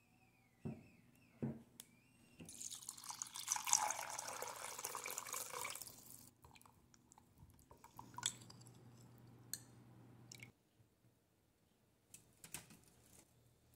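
A spoon stirring a thin soy-based sauce with brown sugar and cornstarch in a glass measuring cup: two light clinks about a second in, then liquid swishing for about three and a half seconds that fades out. Scattered faint clicks follow.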